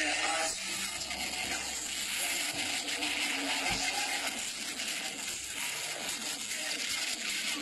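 Dance music cuts off about half a second in, leaving an even crowd din of voices and clatter.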